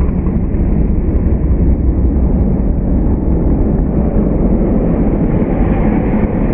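Loud, steady low rumbling noise with no distinct tones or beats, cutting in abruptly just before and running on unbroken.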